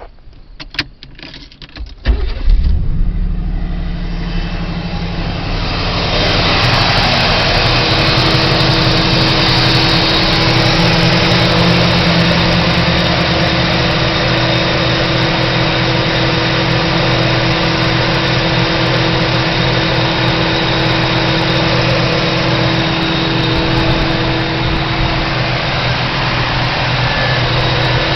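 1985 Pontiac Trans Am's 305 TPI V8 engine cranked and catching about two seconds in, then running at a steady idle that grows louder around six seconds in. The engine runs without its mass airflow sensor, which the owner takes for the cause of its rough running and hesitation.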